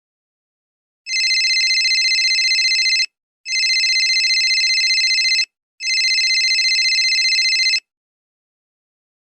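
Telephone ringing: three trilling rings of about two seconds each with short pauses between them.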